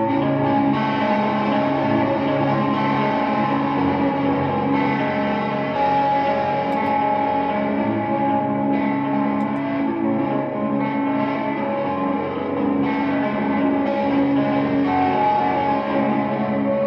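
Electric guitar played through effects pedals: sustained, ringing notes and chords at a steady level.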